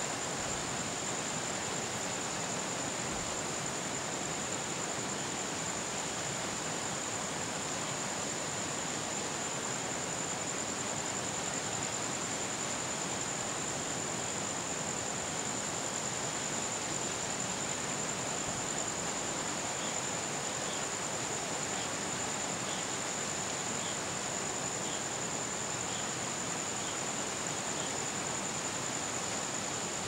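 Steady, even hiss with a thin high whine over it, and a faint run of soft ticks, roughly one a second, in the last third.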